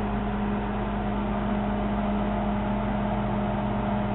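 Panasonic microwave oven running on high with a popcorn bowl inside: a steady electrical hum over even fan-like noise.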